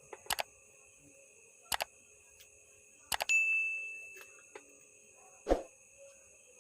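Sharp clicks and taps of small tools working on a circuit board while a 100-ohm preset is being removed, four in all. The third leaves a brief metallic ring and the last is the loudest.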